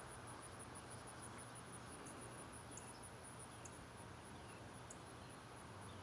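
Near silence: faint background hiss with a faint, very high, evenly pulsing insect chirp, and a few brief high chirps.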